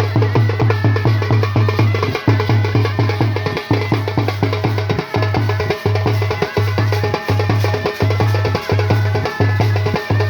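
Band baja music during a sound check: loud, drum-driven music with a heavy bass beat repeating steadily under dense percussion.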